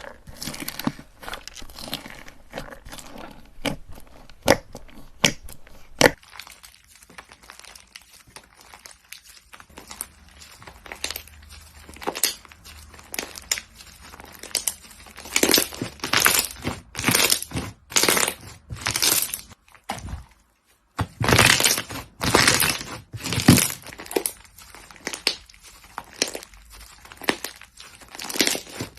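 Slime being squeezed, pressed and poked by hand, giving a dense run of sharp crackles, pops and clicking squelches. There is a brief silent break about two-thirds through.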